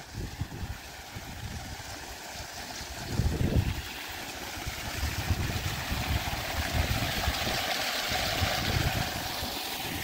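Water pouring from an opening in an old stone aqueduct and splashing into a pool below, growing louder as the microphone nears it, with wind buffeting the microphone.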